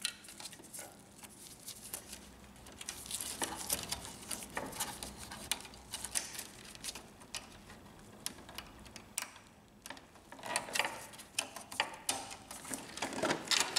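Scattered light clicks and rustles of flat ribbon cables and small plastic parts being handled and pushed into their connectors on an inkjet printer's main board. The clicks come thicker near the end.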